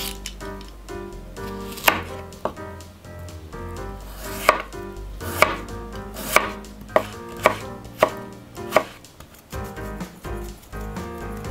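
Chef's knife cutting a Persian cucumber on a bamboo cutting board: about nine sharp, irregularly spaced knocks of the blade on the board, starting about two seconds in and stopping about nine seconds in.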